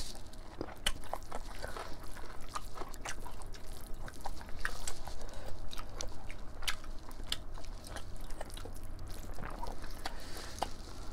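Close-miked eating sounds of two people eating rice and mutton curry by hand: chewing with many irregular sharp, wet clicks.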